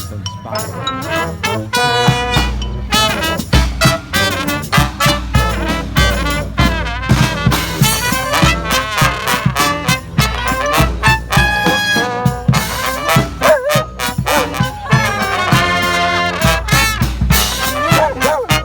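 Street brass band playing an upbeat, swinging tune, with trumpets and trombones over steady drum hits.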